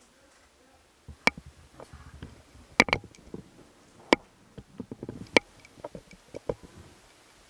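Airsoft guns firing sharp single shots, about five loud cracks at uneven spacing, with fainter clicks and knocks between them.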